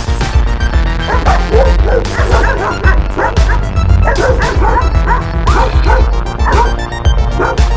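Dogs barking repeatedly and excitedly, starting about a second in, over background music with a steady beat.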